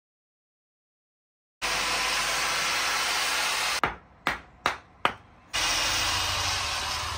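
Four sharp chops of a hatchet striking wood on a stump chopping block, a little under half a second apart, while a small piece is roughly shaped. A steady hiss comes before and after the chops, and the first second and a half is dead silence.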